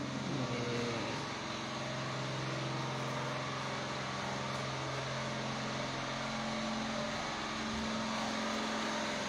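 Steady low hum of a running motor, a level drone that holds without change.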